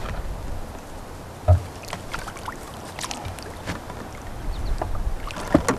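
Water sloshing and splashing beside a small fishing boat as a hooked trout is brought to the landing net, under a low rumble. There is a loud dull knock about a second and a half in and a sharp knock near the end.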